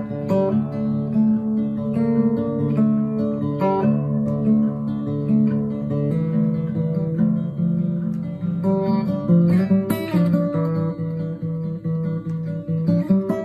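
Acoustic guitar music, plucked notes with occasional strummed chords.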